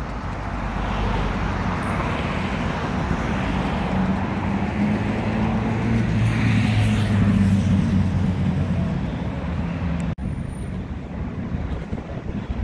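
Road traffic on a busy city street, with a vehicle's low engine hum swelling and then fading in the middle. About ten seconds in there is an abrupt break, after which the traffic noise is lighter.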